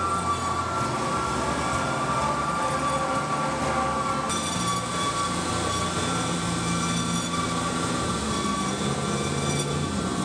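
Industrial horizontal band saws running in a shop: a steady mechanical hum with a high, even whine, the sound shifting about four seconds in.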